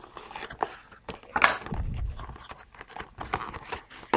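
Cardboard phone packaging being handled on a wooden tabletop: rustling, sliding and small knocks as the inner box comes out of its sleeve, with one louder scrape and thud about a second and a half in.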